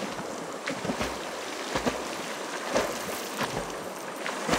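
A person swimming in a flowing river, arm strokes splashing irregularly, about one or two a second, over the steady sound of the moving water.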